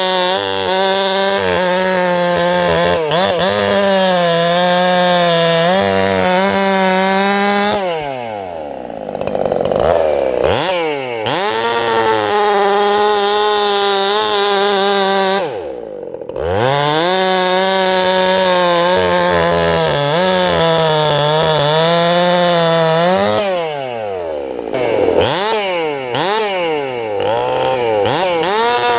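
Two-stroke chainsaw running flat out at a steady high pitch. Twice the throttle is let off and blipped, the pitch dropping and swinging back up before it holds high again.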